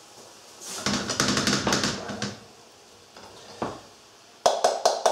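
Metal slotted spatula scraping and stirring through food in a frying pan, then a few sharp clicks of the spatula knocking against the pan near the end.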